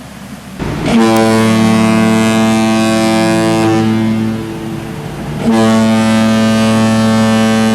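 Ship's horn sounding two long, steady blasts of about three seconds each, the first starting about a second in and the second near the middle, over a background hiss.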